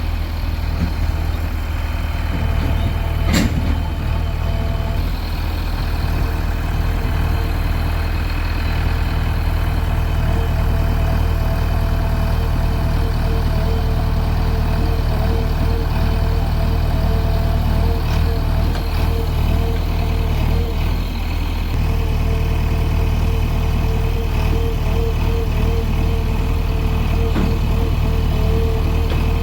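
Heavy diesel machinery engine running steadily, with a wavering mid-pitched tone over the low hum and one sharp click about three and a half seconds in.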